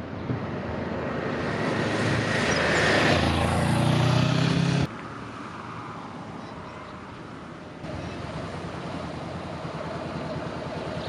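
A vehicle passing close by on a road, swelling to a peak and cut off abruptly. Then a motorcycle engine running at low speed as the bike approaches, getting somewhat louder about two-thirds of the way through.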